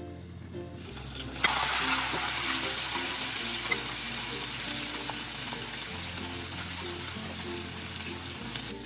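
Battered shrimp sizzling in hot oil for their second frying, to make them crunchier. The hiss jumps up suddenly about a second and a half in as they go into the oil, then carries on as a steady bubbling sizzle that eases slightly.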